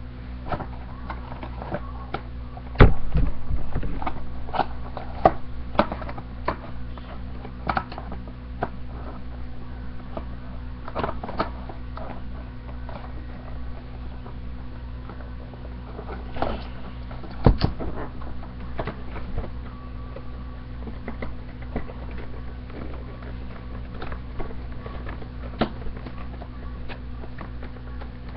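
Irregular clicks, taps and crinkles of plastic toy packaging being handled and cut open, with a sharper knock about three seconds in and another a little past halfway, over a steady low hum.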